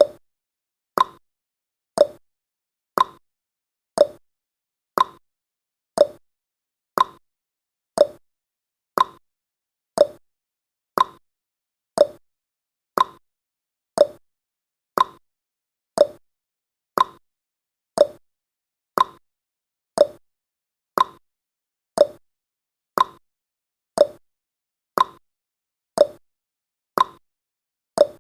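Countdown timer's clock-tick sound effect: one short, sharp tick every second, evenly spaced, with silence between.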